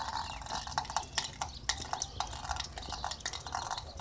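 Meltwater drops falling from the porch roof's edge and tapping irregularly, about three a second, sounding like a little drummer.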